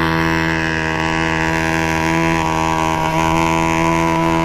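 Small two-stroke petrol engine of a 1/5-scale gas RC buggy running at steady high revs, holding one even note.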